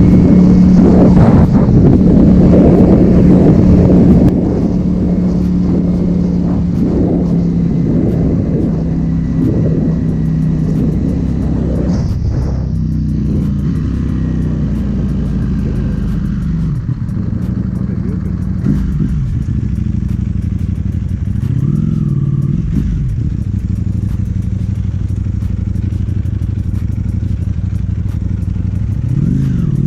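Ducati Panigale V4 S's V4 engine running, loud for the first few seconds and then quieter, with the revs briefly rising and falling twice in the second half.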